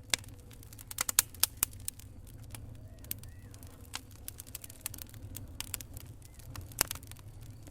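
Wood fire crackling in a fireplace: irregular sharp pops and snaps over a low steady rumble, with a few louder pops about a second in and near the end.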